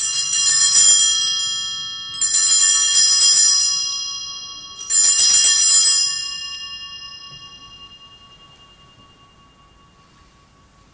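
Altar bells shaken three times, each a jangling peal of several bells that rings on, the last fading out over several seconds: the consecration bells rung at the elevation of the host at Mass.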